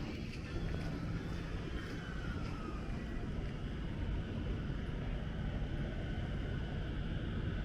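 Steady low rumble of vehicle traffic on a city street, with faint higher tones and a short falling whine about two seconds in.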